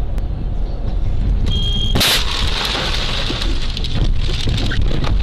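Low rumble of a car driving on a snowy road, heard from inside the car. About one and a half seconds in, a brief high tone sounds, then a sudden loud burst, followed by a steady hissing rush as the car slides sideways on the snow.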